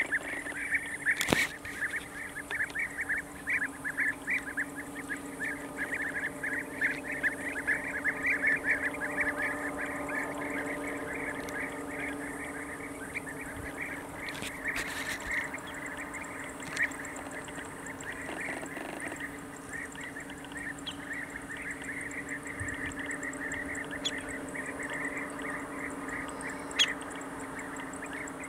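A flock of European bee-eaters calling at their colony: a dense, overlapping chatter of short rolling calls, busiest in the first half and thinning out later.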